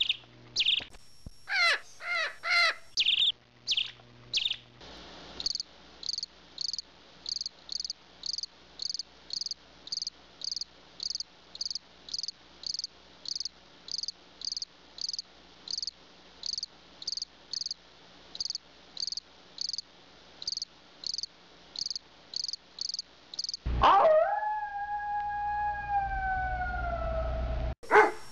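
A few bird chirps at first, then crickets chirping in a steady rhythm of about two chirps a second. Near the end a single long howl that slides down in pitch takes over.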